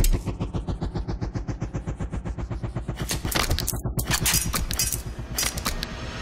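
Electronic sound-design effect: a rapid stuttering pulse at about ten a second, with a rising sweep over the first three seconds and sharper cracks after.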